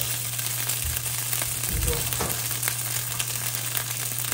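Chunks of luncheon meat sizzling in a nonstick frying pan, a steady light crackle of fat, with a low steady hum underneath.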